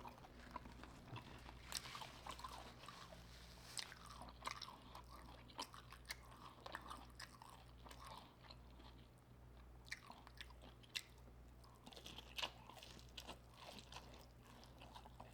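Close-up chewing and crunching of crispy hot honey fried prawns: quiet, with many short crisp crackles scattered throughout.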